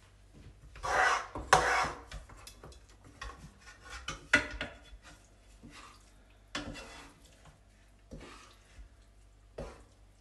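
A wooden spatula and a serving spoon scraping and knocking in a frying pan as browned minced meat is scooped out and spooned onto the tray. Irregular scrapes and taps, loudest about a second in.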